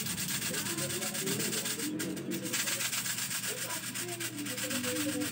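Airsoft rifle magazine shaken by hand to load it, the 6mm BBs inside rattling steadily, with a brief let-up about two seconds in.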